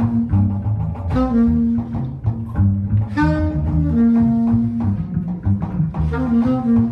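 Live jazz quartet playing: saxophone phrases of long held notes over a walking double bass line and a drum kit.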